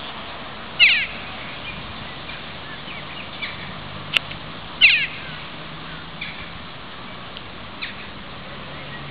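Egyptian geese calling: two loud bursts of quick, downward-sliding calls, about a second in and near the five-second mark, with a few fainter short calls between. A single sharp click comes just before the second loud burst.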